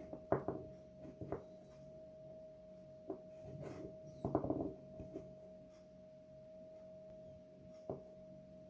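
Scattered small clicks and knocks of hard objects being handled, with a quick cluster of them about halfway through, over a faint steady high hum.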